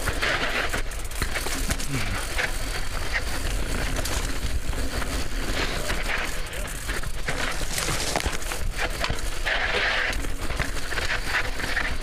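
Mountain bike descending a rocky dirt trail: tyres crunching over dirt and rock, the bike rattling and knocking over bumps, with steady wind rumble on the helmet microphone.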